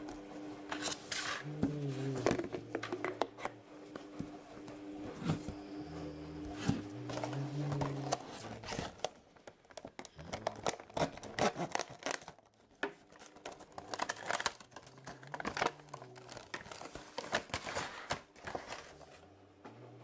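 Thin clear plastic packaging, a box and its moulded insert tray, handled by hand: repeated crinkling, clicking and tapping as the plastic is moved and flexed.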